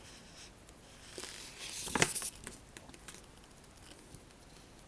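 Paper instruction-booklet pages rustling as a sheet is handled and turned, with a sharp crackle about two seconds in and a few faint ticks after.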